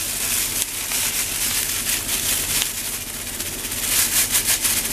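Chopped onion sizzling in hot oil in a frying pan, a steady hiss with scattered crackles that grow thicker near the end.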